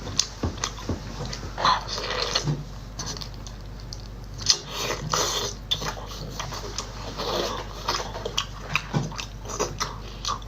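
A person eating close to the microphone: irregular biting, chewing and wet mouth noises.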